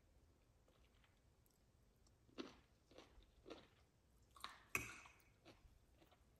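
A person chewing a mouthful of broccoli and rice noodles close to the microphone: a handful of short, soft, wet chewing sounds starting about two seconds in, the loudest one a little before five seconds.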